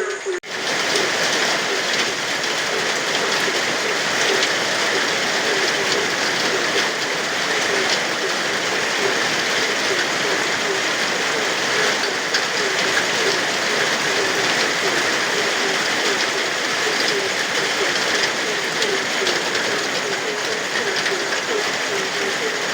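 Steady heavy rain with frogs croaking over it in short, repeated calls. The sound drops out for an instant just after the start.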